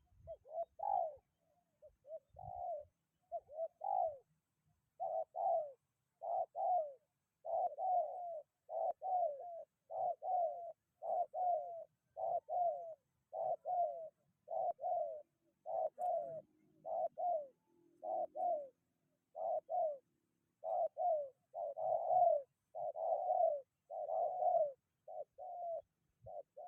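Spotted dove (tekukur) cooing in a long, unbroken run of short notes, about one to two a second, each note dipping slightly in pitch.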